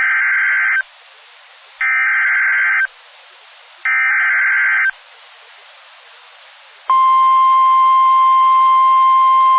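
Three one-second bursts of Emergency Alert System SAME header data, a buzzy two-pitch digital warble, each followed by about a second of radio hiss. About seven seconds in, the NOAA Weather Radio's steady 1050 Hz warning alarm tone begins.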